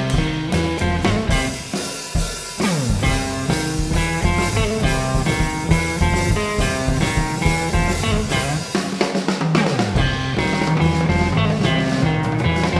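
A live instrumental jazz-rock trio: electric guitar, upright double bass and drum kit playing together. The deep bass drops out briefly about nine seconds in.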